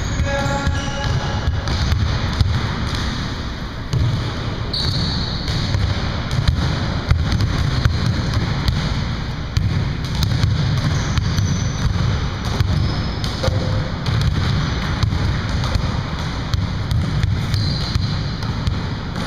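Basketballs bouncing on a hardwood gym floor during a game, with many thuds and a few short, high sneaker squeaks.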